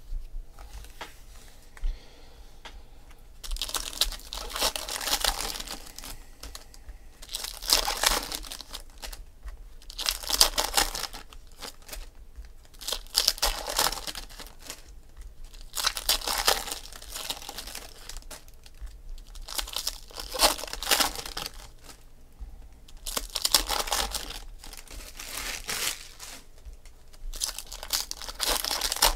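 Shiny plastic wrappers of Panini Contenders football card packs being crinkled and torn open by hand, in a run of separate bursts about every three seconds.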